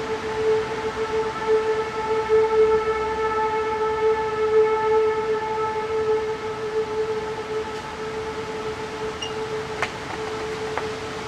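Outdoor civil-defense warning siren sounding one steady tone that swells and fades a little, softer over the last few seconds. It is the alert for a severe thunderstorm with straight-line winds over 70 mph.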